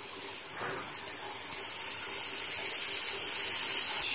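Moringa leaves sizzling and steaming in a hot kadai, a steady hiss that grows slowly louder as the water left on the washed leaves cooks off.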